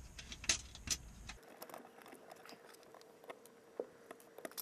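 Scattered small clicks and taps of electrical wires being handled at a metal junction box, with wire strippers worked on a wire near the end. A low background hum stops about a second and a half in.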